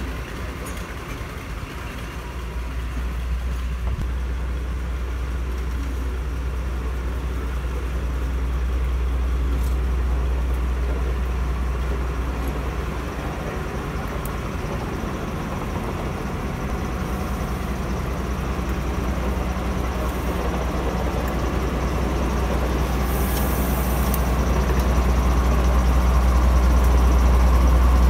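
BR Class 42 Warship diesel-hydraulic locomotive D832 'Onslaught', with its twin Maybach diesel engines, running slowly up to and past the listener with a steady low engine hum. The hum grows louder as the locomotive draws alongside, and there is a brief hiss a few seconds before the end.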